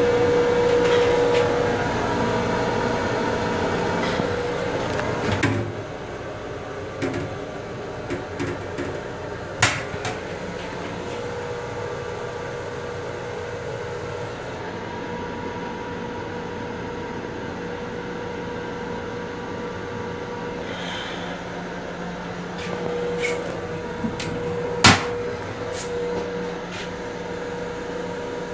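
Steady hum of an M7 railcar's onboard equipment heard inside its small restroom, with a few level tones. It is louder for the first five seconds or so, and a few sharp knocks come through, the loudest about two-thirds of the way in.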